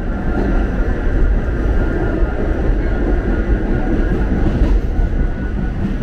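New York City subway train (N train) running between stations, heard from inside the car: a steady, loud rumble of wheels on the track with a faint steady whine above it.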